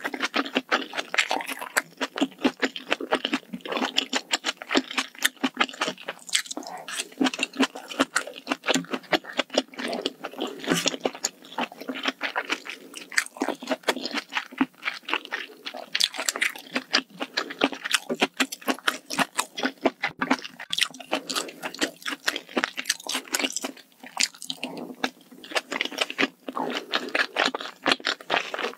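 Close-miked eating of spicy malatang hot pot: continuous wet chewing and crunching, many small irregular mouth clicks.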